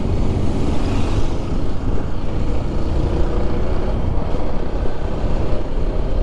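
Motorcycle cruising at about 50 km/h, heard from the rider's helmet camera: wind buffeting the microphone over the engine's steady running.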